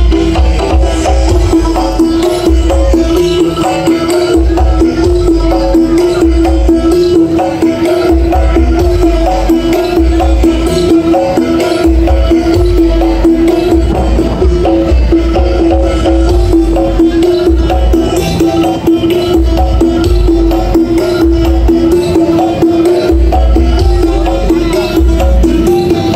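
Very loud DJ dance music blasting from a carnival 'sound horeg' sound system, with heavy bass coming in and out in blocks under a steady held note and busy drumming.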